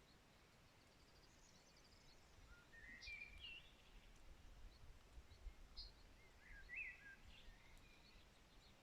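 Faint songbirds chirping on and off, with a quick high trill and several short rising and falling calls, over a soft steady background hiss.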